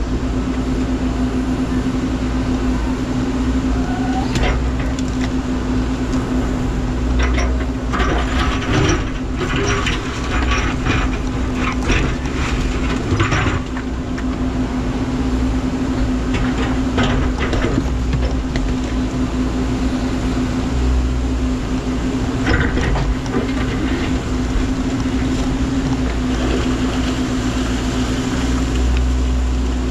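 Menzi Muck spider excavator working, its engine and hydraulics running with a steady hum, and scattered clanks and scrapes, heaviest in two clusters early on and in the middle.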